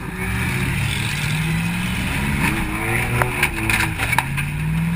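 Demolition derby car's 4.6-litre V8 revving hard under acceleration from inside the stripped cabin, its pitch climbing, dropping back about three seconds in and climbing again. A cluster of sharp metallic knocks comes in the middle.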